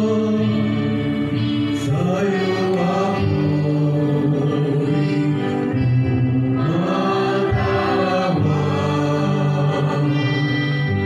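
Church singing of the responsorial psalm at Mass: slow, with long held notes that change every few seconds.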